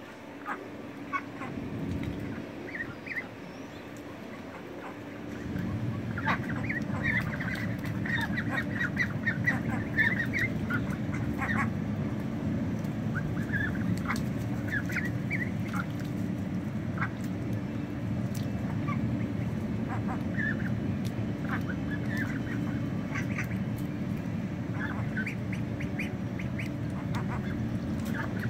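A flock of domestic ducks quacking, with many short calls that become more frequent about six seconds in. A steady low hum runs beneath from about five seconds in.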